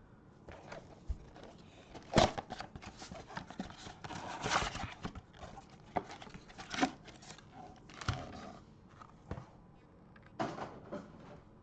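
Trading-card packaging being handled: irregular crinkling and rustling of wrappers and cardboard, with scattered sharp taps and clicks, the loudest about two seconds in.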